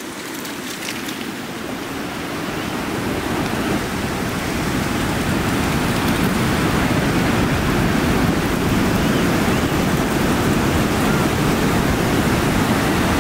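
Ocean surf washing up a shallow sandy beach: a steady rushing noise that builds over the first several seconds, then holds.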